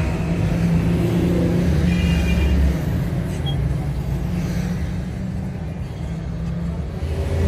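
Steady low rumble like a running vehicle engine, easing off a little about three seconds in.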